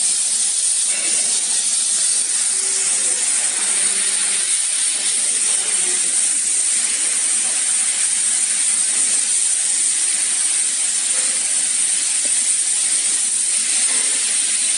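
Steady high-pitched hiss, even and unchanging throughout.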